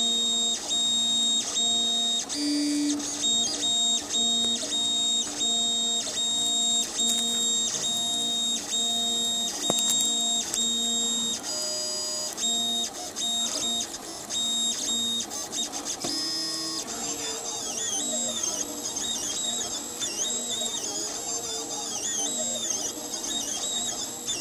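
3D printer's stepper motors running through print moves: several steady tones that start, stop and change pitch in quick steps, about twice a second. From about 17 seconds in, the tones slide up and down.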